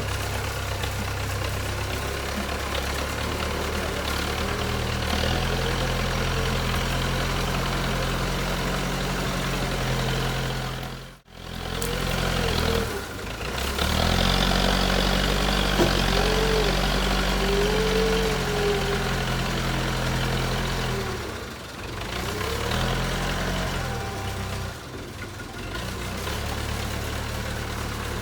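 JCB 3CX backhoe loader's diesel engine running, rising and falling in pitch as it comes on and off load, with a sudden break about eleven seconds in.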